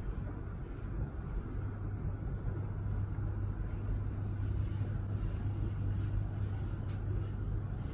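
Steady low engine hum over a constant rumble, unchanging throughout.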